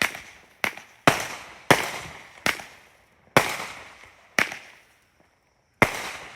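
A consumer fireworks cake firing in sequence: eight sharp bangs in about six seconds, irregularly spaced, each trailing off in a short echo.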